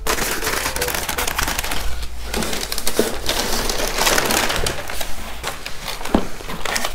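Tissue wrapping paper rustling and crinkling as hands unfold it and pull a shoe out of a cardboard shoebox, a busy run of crackles and rustles with no let-up.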